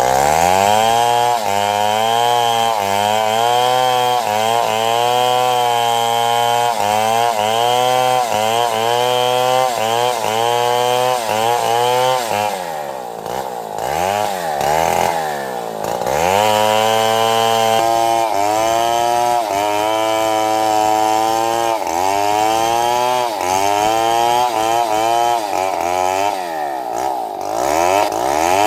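Two-stroke chainsaw cutting wood at high revs, its pitch dipping and recovering over and over under load. About halfway through, the engine drops lower for a few seconds, then revs back up and cuts again.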